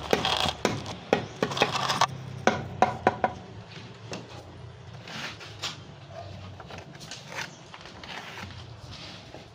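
Irregular sharp knocks and clacks of woodworking, about eight in the first three seconds, then quieter scraping and shuffling over a low steady hum.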